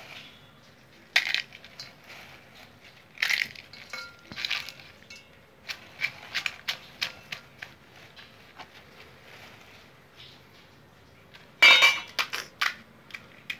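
Crisp fried puris (pani puri shells) being crushed in a stainless steel bowl, crackling in scattered short bursts, with a steel spoon scraping and clicking against the bowl. Near the end, a louder clatter of the metal ladle against the steel bowl.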